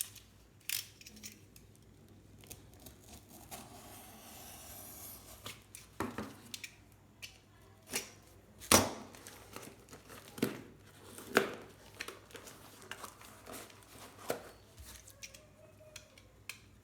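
A shipping package being torn open by hand: a stretch of tearing about four seconds in, with scattered crinkles, snaps and knocks of the packaging, the loudest sharp knocks about nine and eleven seconds in.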